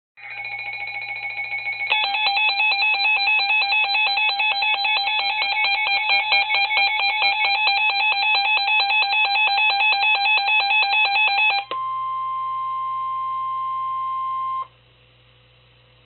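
Midland WR-100 weather radio sounding its electronic alert siren: a loud, rapidly pulsing alarm that changes pattern about two seconds in and cuts off suddenly after about twelve seconds. It is followed by the steady single-pitched NOAA Weather Radio 1050 Hz warning alert tone for about three seconds, the signal that a warning message, here a severe thunderstorm warning, is about to be broadcast.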